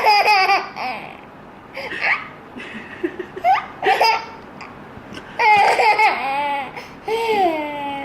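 A young child laughing and squealing in high-pitched bursts, about five times, the pitch sliding up and down.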